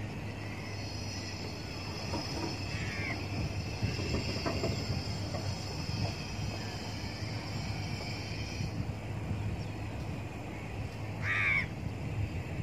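Outdoor background with a steady low hum and rumble and a steady high drone that stops about two-thirds of the way through; about eleven seconds in, a single short bird call stands out as the loudest sound.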